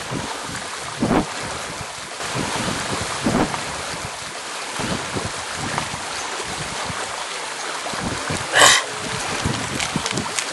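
Wind buffeting the camera microphone, a steady rushing noise, with a short louder sound about eight and a half seconds in.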